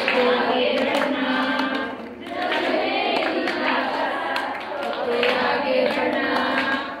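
A group of women singing a song together, with a brief break between phrases about two seconds in.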